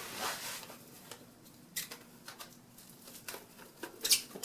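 Plastic cling wrap being pulled off its roll and handled: soft rustling with a few scattered crackles and light clicks.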